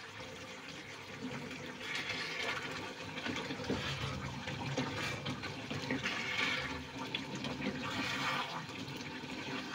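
Thin, bubbling pea-and-paneer curry sloshing in a pan as a wooden spatula stirs it, the liquid swishing in repeated swells about every two seconds.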